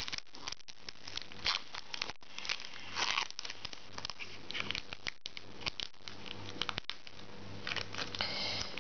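Foil wrapper of a Pokémon card booster pack crinkling and tearing in irregular bursts as it is opened and the tight-packed cards are worked out of it.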